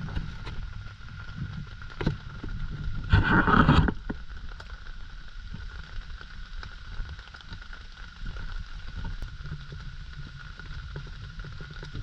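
Kovea Alpine Master 2.0 radiant gas burner stove running under a pot of water, a steady low rumble with a thin steady whine. About three seconds in there is a brief loud noise lasting under a second.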